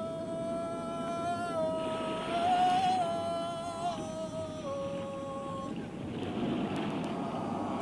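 A man's voice singing one long held note that wavers slightly in pitch and stops near the end, in the manner of a Gulf pearl-diving sea song. A low steady rumble runs underneath.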